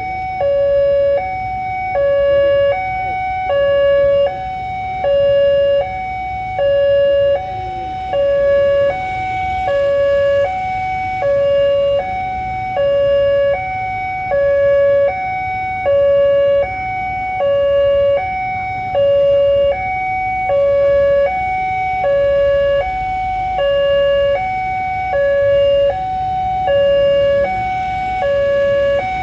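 Railway level-crossing warning alarm sounding a steady two-tone signal that alternates between a lower and a higher pitch about every half second, warning that a train is approaching. A low rumble runs underneath.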